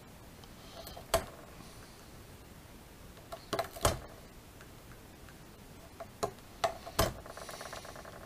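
Sharp clicks and taps of a hand tool working a plastic model-kit part: one click about a second in, a cluster near four seconds, more around six to seven seconds, then a brief rapid run of fine ticks, like scraping, near the end.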